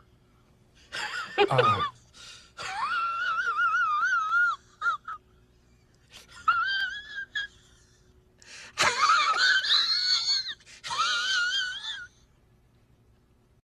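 A series of about five high-pitched, quavering wheezes in separate bursts, some a second or two long, each wobbling up and down in pitch.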